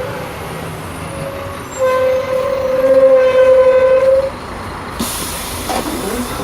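Interior of a Scania K310 articulated city bus in motion: a steady whine that swells for a couple of seconds and then drops away, followed about five seconds in by a sudden hiss of compressed air.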